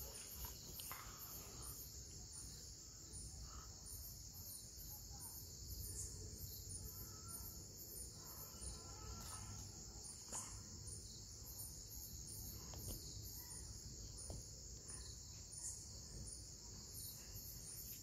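Insects chirping steadily in a high, rapidly pulsing drone, faint, with a few soft clicks of handling now and then.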